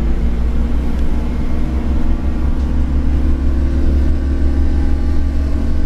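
Scania OmniCity N230UD double-decker bus's diesel engine and running gear, heard from inside the upper deck as a steady, low drone while the bus drives along.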